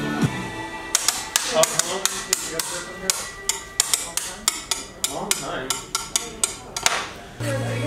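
A quick, irregular run of sharp knocks or taps, several a second, lasting about six seconds. A steady low hum comes in near the end.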